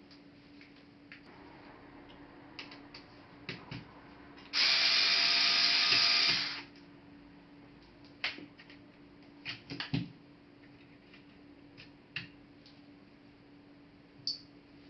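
A small electric tool motor runs steadily for about two seconds, amid scattered sharp clicks and taps of laptop parts and screws being handled.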